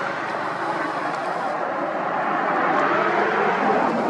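Steady rumbling noise of motor traffic, growing a little louder toward the end.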